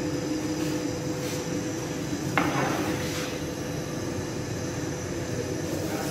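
Steady mechanical hum, with one sharp clink about two and a half seconds in and a few faint knocks, as a long-handled peel loaded with sangak dough is worked into a hot-pebble oven.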